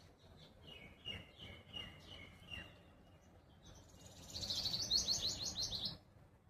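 Songbirds calling: a string of short, evenly repeated chirps in the first half, then a louder, fast run of high chirps, several a second, that stops about a second before the end.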